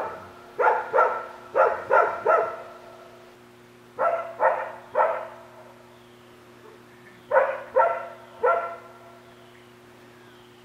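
A dog barking in three quick runs of sharp barks, about a dozen in all, with pauses of a second or two between runs.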